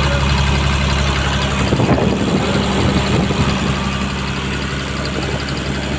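Komatsu PC200-8 excavator's six-cylinder common-rail diesel idling steadily, with a brief change in the engine sound about two seconds in. The engine has a leaking fuel relief valve on the common rail, the cause of its hard starting.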